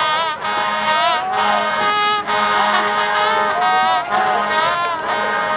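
A school band's brass section playing a tune, trumpets and trombones together, with a low note held under changing higher notes through most of it.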